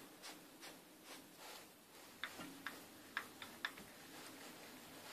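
Faint, scattered light clicks and ticks, about half a dozen, most between two and four seconds in, from the hand-turned feed controls of a benchtop metal lathe being handled. Under them is a low, steady hum.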